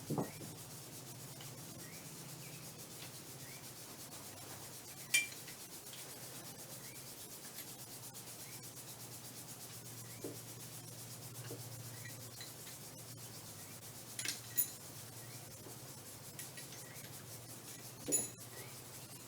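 A few light, sharp clicks and knocks of hard parts being handled, one at a time and well spaced, over a faint steady low hum.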